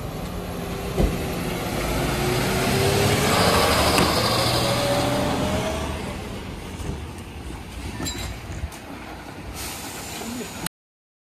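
Mercedes Econic refuse truck running as it drives up and pulls alongside, its engine note joined by a whine that rises in pitch and grows loudest a few seconds in, then dies away as the truck slows. A few sharp clicks and a brief hiss follow, and the sound cuts off abruptly just before the end.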